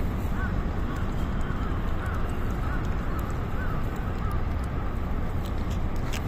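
Steady low outdoor background rumble. Over it, from about half a second to four seconds in, a bird gives a series of short wavering calls.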